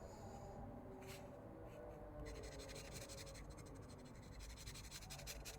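Faint rubbing and scratching against a hard surface, with fine scratchy ticks that thicken about two seconds in.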